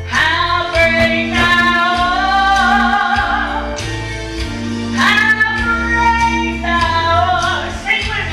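A woman singing a gospel song with vibrato over instrumental accompaniment with a steady bass line, in long held phrases.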